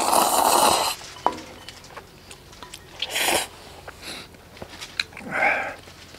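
A person eating black-bean instant noodles close to the microphone: a loud slurp of noodles lasting about a second, then further shorter slurps and mouth noises about three and five seconds in, with a few light clicks of chopsticks between.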